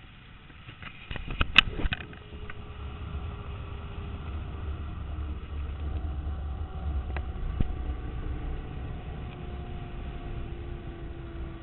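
Zip line trolley running along the steel cable: a faint whine that slowly falls in pitch over a steady low rumble, after a few sharp clacks and knocks about one to two seconds in.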